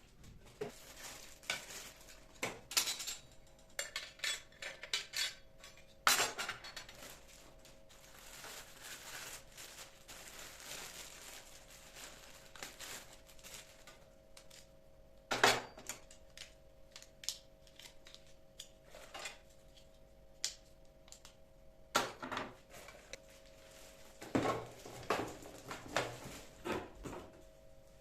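Kitchenware being handled: dishes and metal utensils clinking and clattering in irregular knocks, a few sharper strikes standing out, over a faint steady hum.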